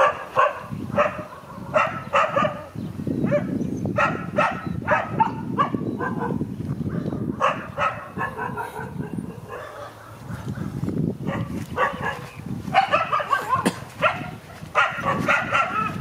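A dog barking over and over in quick runs of short barks, with a brief lull about ten seconds in before the barking picks up again.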